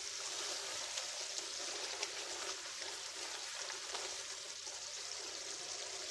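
Thick fish curry gravy bubbling and sizzling steadily in a pot on the stove, with a few faint taps of a spatula as it is stirred.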